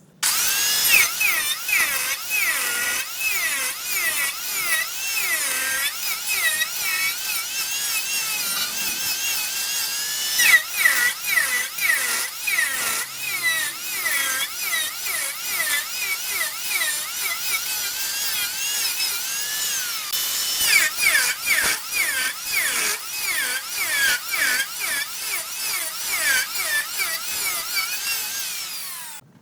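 Turning tool cutting into wood spinning on a wood lathe: a scraping whine that rises and falls in pitch over and over, with rapid clicking from the cut.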